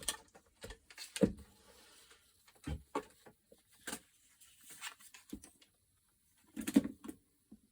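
Scattered light clicks and taps of small tools and plastic parts being picked up and handled, with a louder cluster of knocks near the end.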